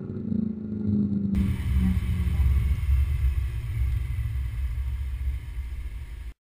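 Mercedes-Benz C63 AMG's 6.2-litre naturally aspirated V8 exhaust note falling in pitch as the car passes. After a sudden change about a second in, it gives way to a low rumble under a steady hiss, and the sound cuts off suddenly near the end.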